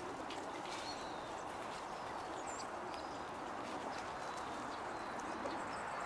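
Sparrows pecking birdseed off a wooden picnic table, a scatter of small sharp taps, with short high chirps from small birds. Steady background noise runs underneath.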